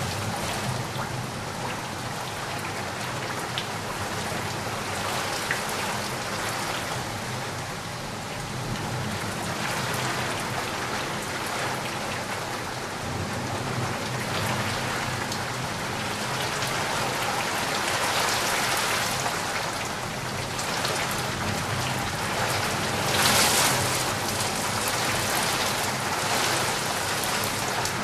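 Steady rain falling, with scattered drop ticks in the hiss and a brief louder swell near the end.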